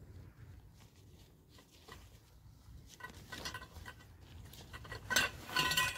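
Metal tent pole sections clinking and rattling against one another as they are pulled out of their carry bag, starting about halfway through and loudest near the end.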